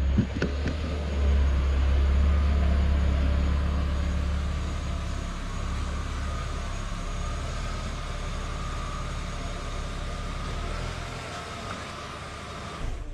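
A car engine running steadily, a low hum that slowly fades away over several seconds.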